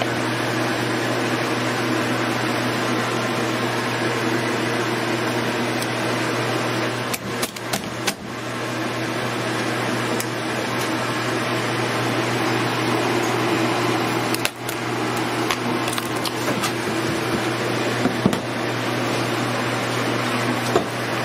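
Steady hum of a running fan motor, with a few brief knocks about seven to eight seconds in and again near fifteen seconds.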